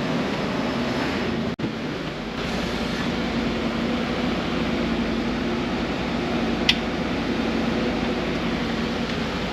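Blue Bird Vision school bus engine idling steadily with a low hum. The sound briefly drops out about a second and a half in, and there is a short high squeak about two-thirds of the way through.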